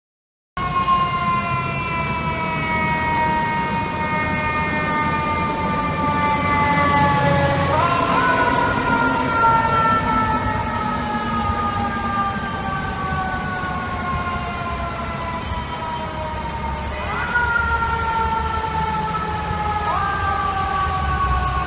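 Fire engine's mechanical siren wailing, its pitch sliding slowly down and then pushed sharply back up three times, over the low rumble of engines and street traffic. It starts abruptly about half a second in, after dead silence.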